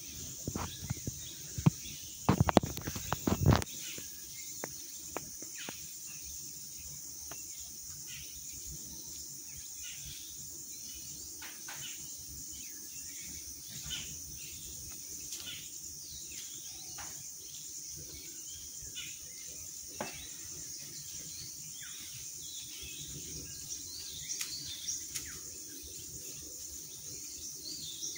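Forest ambience: a steady high-pitched drone of insects with scattered bird chirps. In the first few seconds a series of sharp cracks and knocks stands out above it.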